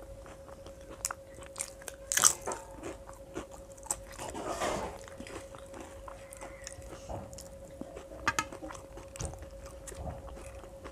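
Close-up mouth sounds of a person eating a meal of khichuri and fried sides by hand: chewing and crunching, with scattered sharp clicks and a louder one about two seconds in. A faint steady tone runs underneath.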